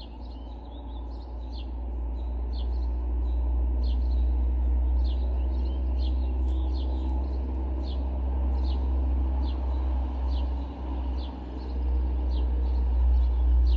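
A bird chirping over and over, short falling chirps about one and a half a second, over a steady low rumble.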